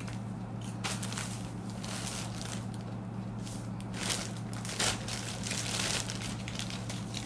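Clear plastic bag crinkling and rustling in irregular bursts as a folded onesie is slid into it and the bag is handled, busiest from about four to six seconds in, over a steady low hum.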